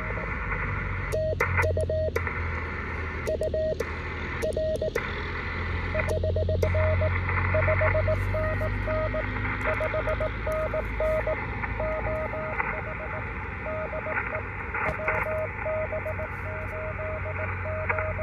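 Morse code (CW) from an HF transceiver's speaker: a single steady tone keyed in dots and dashes over band hiss. In the first seven seconds or so the hiss cuts out in short stretches while the tone goes on, as the receiver mutes during the operator's own sending on his paddle. After that the other station's code comes in over the hiss.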